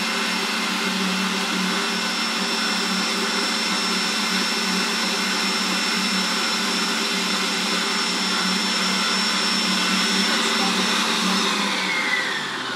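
Kogan stand mixer motor running steadily with a whine while beating batter in a steel bowl, then switched off near the end, its pitch falling as it winds down.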